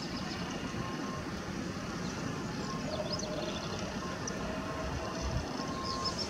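Polish Pt47 steam locomotive rolling slowly into the station with its train: a steady low rumble without a clear exhaust beat. An on-off beeping tone repeats in the background, and there are a few high chirps near the middle.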